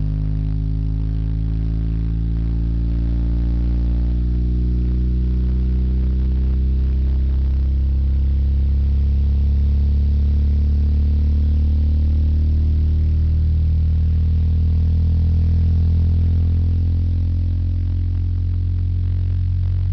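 Orion XTR Pro 12-inch subwoofer (500 W RMS) playing loud, sustained deep bass tones that shift slowly in pitch.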